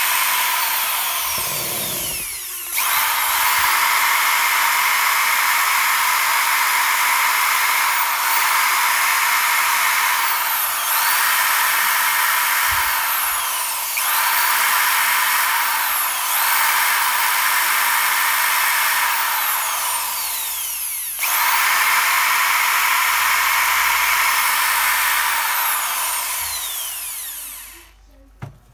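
Bosch GSB 20-2RE hammer drill's brushed motor running free at full speed with a steady high whine. It is switched off and on again several times, so the pitch falls away and climbs back, and it runs down to a stop near the end. This is a test run on new carbon brushes cut from a washing-machine brush, and the motor is working again.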